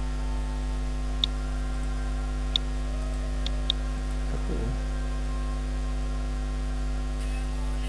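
Steady electrical mains hum, with four faint sharp mouse clicks, the last two close together.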